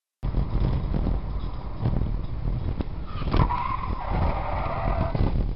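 Road and wind noise of a car at speed, picked up by a dashcam inside it. About three seconds in comes a sharp noise, then a high squeal lasting about two seconds that drops in pitch partway.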